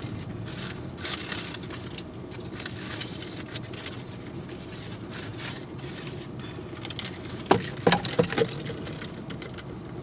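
A drink sucked through a plastic straw from a paper fast-food cup: soft hissing sips in the first few seconds and again around five seconds in. A steady car-cabin hum runs underneath, and a few sharp clicks and taps come about seven and a half to eight and a half seconds in.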